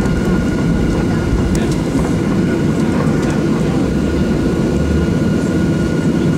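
Steady cabin noise of a Boeing 737-700 taxiing with its CFM56 engines at idle: a low rumble with a thin, steady high whine over it.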